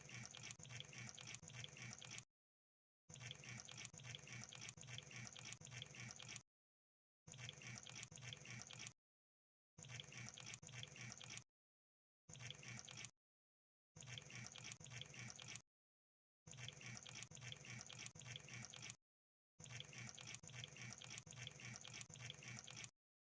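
Crab sound effect: faint wet clicking and bubbling crackle, coming in eight bursts of one to three seconds each, broken by short gaps of dead silence.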